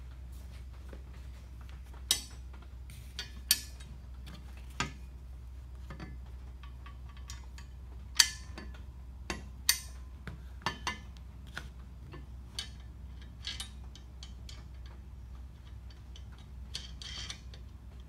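Steel carriage bolts and nuts clinking against the 1/4-inch steel frame parts of a wheel hoe as they are fitted and the nuts threaded on by hand. Scattered sharp metallic clicks, the loudest about eight and nine and a half seconds in.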